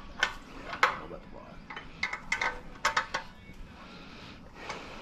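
Steel hand wrenches and bolts clinking against metal mounting hardware: an irregular string of sharp metallic clinks and taps, each with a short ring, some single and some in quick clusters.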